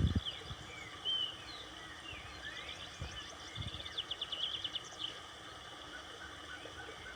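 Several wild birds singing and calling, with short chirps and sliding whistles and a fast trill about four to five seconds in, over a steady rush of flowing water. A brief low rumble comes right at the start.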